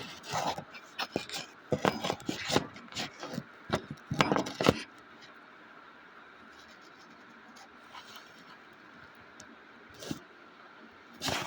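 Irregular knocks, taps and scraping of hard objects being handled for about the first five seconds, then quieter background with a faint steady hum and a few light ticks.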